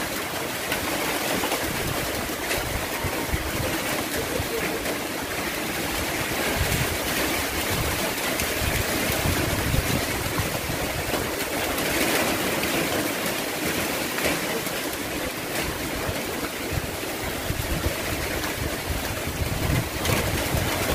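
Heavy typhoon rain and wind: a steady, dense hiss of driving rain that swells a little now and then.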